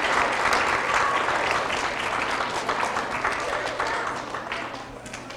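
Audience of schoolchildren applauding, with cheering voices mixed in; the clapping fades out near the end.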